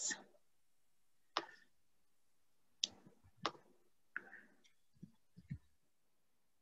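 Faint, scattered computer mouse clicks, about eight short sharp clicks at irregular intervals starting about a second in, as screen sharing is stopped.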